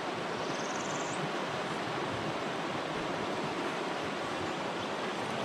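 Steady rush of a fast, shallow river running over a riffle of white water.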